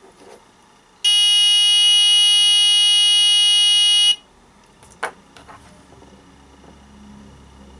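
White round buzzer (rated 2 to 6 volts) run from two AA batteries at 3 volts, giving a loud, steady, high-pitched buzz for about three seconds that cuts off suddenly. A single click follows about a second later.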